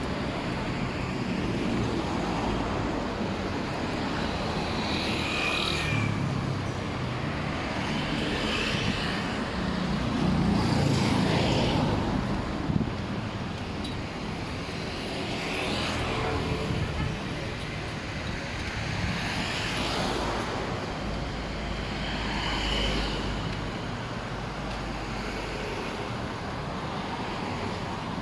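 Busy street traffic: a steady hum of engines and tyres, with vehicles passing one after another, each swelling up and fading away, the loudest a little before the middle.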